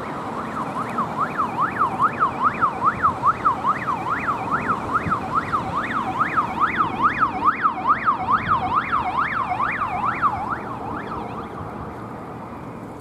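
Peugeot Expert police van's siren on a fast yelp, rising and falling about three times a second, with tyre and engine noise beneath. It swells up within the first couple of seconds as the van approaches and fades away after about ten seconds.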